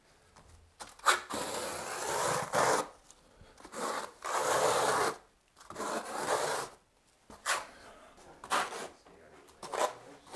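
Steel V-notch trowel scraping mortar across a foam shower pan. First come three long spreading strokes of a second or two each, then shorter, quicker combing strokes near the end.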